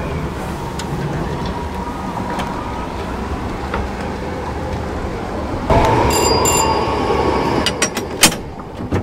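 Vintage A2 tram's bell ringing, starting about six seconds in with two quick dings, over a steady rumble; then several sharp clicks and one loud knock near the end.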